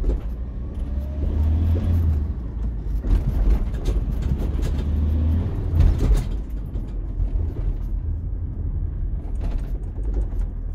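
Ford Transit van's engine running and pulling in low gear, heard from inside the cab while driving, with a low drone that swells a couple of times as the driver accelerates and works the gear lever.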